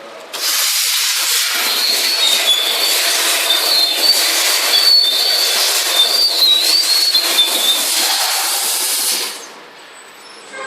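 CNC V-grooving machine's cutter carriage making a cutting pass along a steel sheet: a loud hissing scrape with a wavering high whine. It starts abruptly about half a second in and cuts off about nine seconds in.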